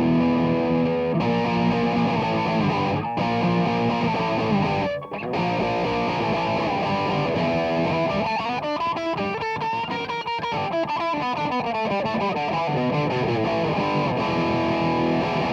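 Stagg Stratocaster-style electric guitar played with distortion: held notes, a brief gap about five seconds in, then a run of quick, wavering notes.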